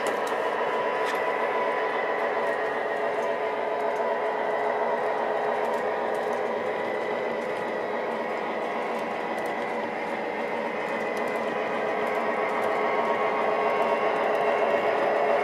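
O-gauge model train running along the track, a steady mechanical whir of motor and wheels on rail that grows louder near the end.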